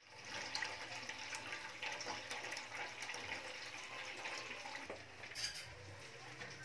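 Tap water pouring steadily into a stainless steel pot, filling it, with a short clatter about five seconds in.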